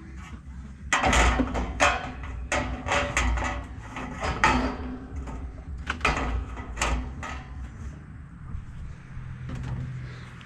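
Metal parts of a chicken coop knocking and rattling as they are handled: a quick run of sharp clanks and clatters for several seconds, then dying down.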